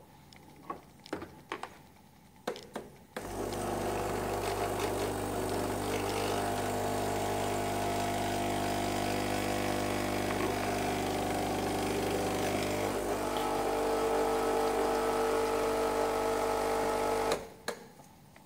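DeLonghi EC145 espresso machine's vibration pump buzzing steadily for about fourteen seconds, starting suddenly about three seconds in and cutting off suddenly near the end; its tone shifts slightly about two-thirds of the way through. A few clicks and knocks of the machine being handled come before it.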